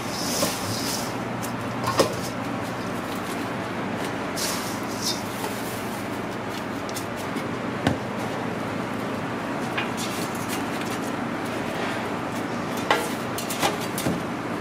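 Steady mechanical hum of a commercial kitchen, with a few sharp knocks of stainless-steel pans and brief gritty rustles of a coarse salt-and-herb rub being worked by hand.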